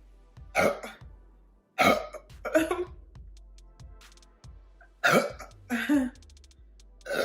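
A woman's short throaty vocal outbursts, about seven in quick succession, each well under half a second.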